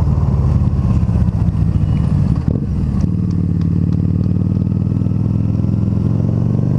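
Harley-Davidson V-Rod Muscle's liquid-cooled 1250 cc Revolution V-twin running at low road speed as the bike rounds a corner into a side street. The engine note changes briefly about two and a half seconds in, then runs steady.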